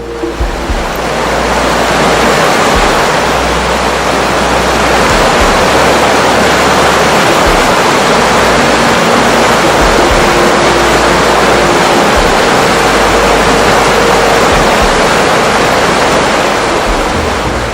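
Loud, steady rushing of water that sets in at once, with faint music notes under it.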